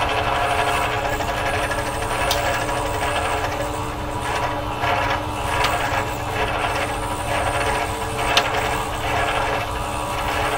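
Benchtop drill press running with a steady motor hum as the bit is fed into a composite propeller hub, cutting through cured epoxy fairing filler. The cutting noise rises and falls, with a couple of sharp clicks.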